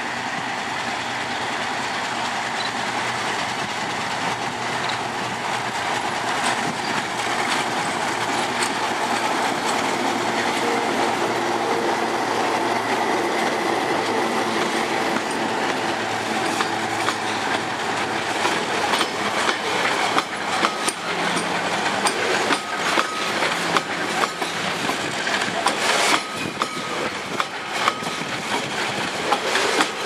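Loaded freight train passing close by: the diesel locomotives, an RSD16 and a GT22, run past with their engines, then the coal hopper wagons roll by with wheel clacks over the rail joints that grow thicker and louder in the second half.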